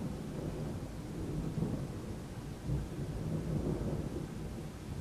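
Thunder rolling in a long, uneven rumble that swells in the middle and eases off near the end, with a steady hiss of rain behind it.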